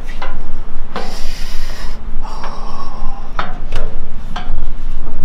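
Footsteps climbing a painted metal fire escape: several knocks on the steps mixed with scraping and rubbing, including a rasping stretch about a second in, over a constant low rumble.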